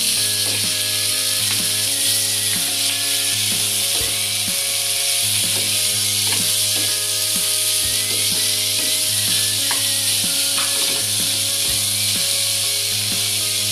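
Pork cubes sizzling in a non-stick wok with a steady hiss, while a wooden spatula stirs them, knocking and scraping against the pan about once or twice a second.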